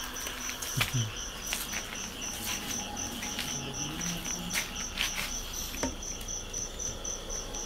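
Cricket chirping in a steady, rapid, high-pitched pulse with other night insects, broken by a few sharp clicks and knocks.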